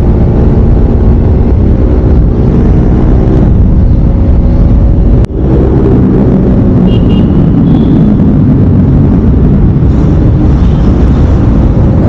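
Sport motorcycle's engine running at a steady cruising speed, with wind rushing over the microphone. The sound breaks off for an instant about five seconds in.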